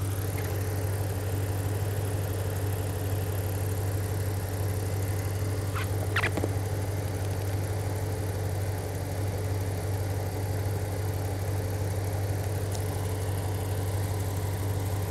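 2012 Ram 1500 pickup's engine idling steadily while its alternator is being full-fielded, with voltage applied straight to the field control wire. A brief high chirp about six seconds in.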